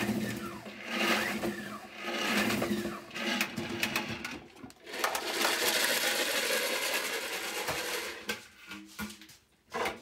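Plastic salad spinner whirring as its basket of rinsed Cherry MX switch parts spins to fling off the water, then plastic rattling and knocks as the spinner is handled and its lid comes off in the second half.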